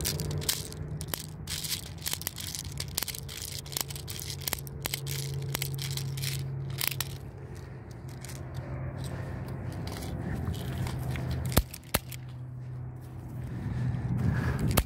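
Quick clicks and scraping handling noise as an HK USP airsoft pistol's magazine is loaded by hand. Near the end come two sharp clacks a moment apart as the pistol is reloaded.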